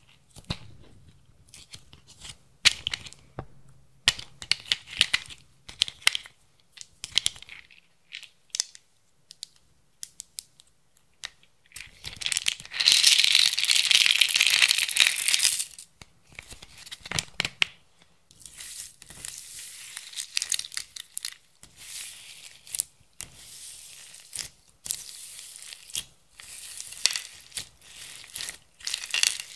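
Plastic bead box handled with scattered clicks and taps, then about twelve seconds in a loud rattle of small plastic beads pouring out of its compartments onto clear slime for about three seconds. After that come crackling and squishing as hands press the bead-filled slime.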